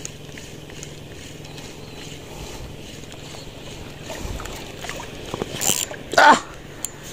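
Steady hiss of wind and water, broken about six seconds in by a short noisy burst and then a loud, brief vocal exclamation that rises and falls in pitch.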